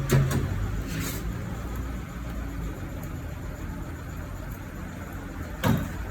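Tyre-change work on a car: a few short, sharp knocks and clanks of tools and wheel parts over a steady low rumble, with a cluster of knocks at the start and one louder knock near the end.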